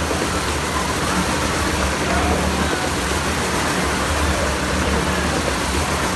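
Engine of a stunt vehicle riding round the vertical wooden wall of the Wall of Death drum: a loud, unbroken drone with a low rumble that pulses in level.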